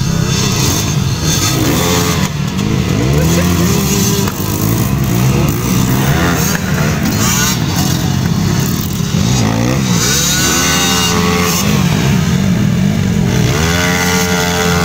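Several dirt bike engines running at the start line, revved up and down again and again while the bikes wait for the start.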